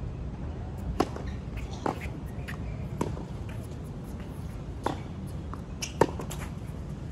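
Tennis rally on a hard court: sharp pops of racket strings striking the ball and the ball bouncing, about five in all, the loudest about a second in and near the end. A steady low rumble underneath.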